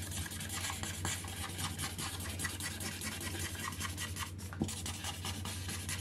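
Felt-tip markers scribbling quickly on paper colouring sheets: a close run of short scratchy strokes over a steady low hum.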